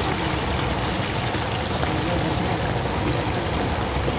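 Battered meat pieces deep-frying in a large wok of hot oil, a steady sizzle.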